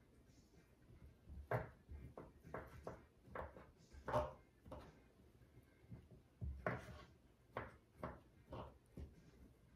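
Chef's knife chopping rotisserie chicken on a wooden cutting board: faint, irregular knocks of the blade on the wood, with a short pause about halfway through.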